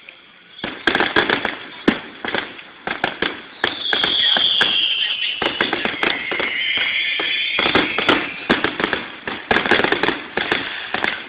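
Fireworks display: dense rapid crackling pops and bangs, with a falling whistle about four seconds in.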